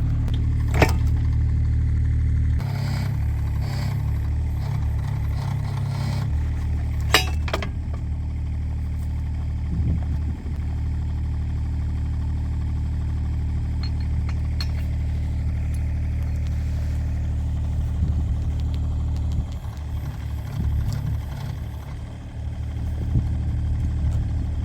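Kubota mini excavator's diesel engine running steadily, with a couple of sharp metal clinks, one about a second in and another about seven seconds in.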